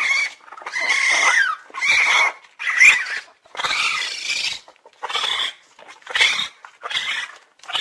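Raccoon calling: a string of short, harsh, high-pitched calls, roughly one a second, some bending up and down in pitch.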